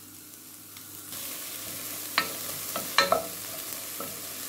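Chopped onions starting to sizzle in hot olive oil in a pot, the sizzle swelling about a second in. Several sharp knocks of a wooden spoon against the pot as the onions are stirred.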